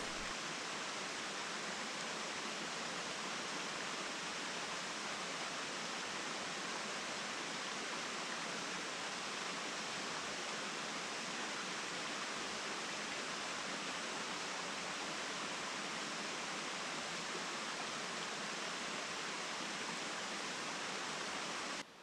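Steady rush of an 80-foot waterfall, an even hiss of falling water with little low rumble. It drops suddenly to a fainter rush just before the end.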